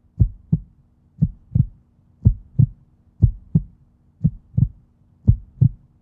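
Heartbeat sound effect: pairs of deep thumps, about one pair a second, over a faint steady low hum.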